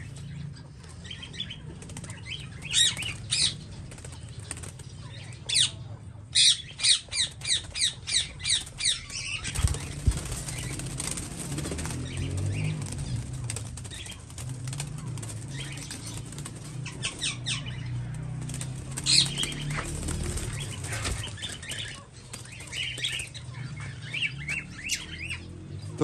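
Diamond doves flapping their wings in several short flurries of rapid wingbeats inside a wire aviary, over a steady low hum.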